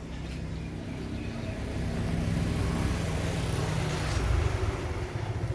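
A motor vehicle passing: a low engine rumble that grows louder, is loudest about four seconds in, then begins to fade.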